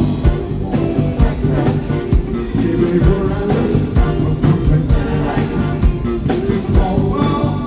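Live band playing an upbeat soul song with a steady drum beat, electric guitar and singing.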